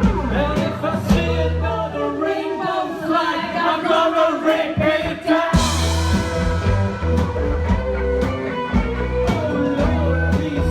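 Rock music with a singer, electric guitar, bass and drums. The bass and drums thin out for a few seconds, then come back in with a cymbal crash about halfway through.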